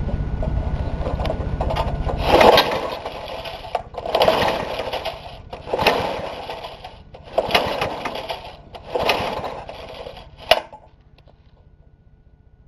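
Briggs & Stratton 3.5 hp lawnmower engine being pull-started: five pulls of the recoil starter, each a rasping whirr of cranking that fades away, and the engine does not catch. It is on gas about two years stale, with a fuel pickup tube the owner takes to be clogged. A steady low rumble comes before the first pull, and a sharp click follows the last.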